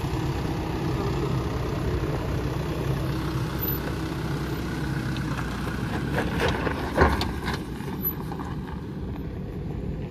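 Off-road SUV engine idling steadily. A few knocks and clatters come about six to seven and a half seconds in, the loudest about seven seconds in.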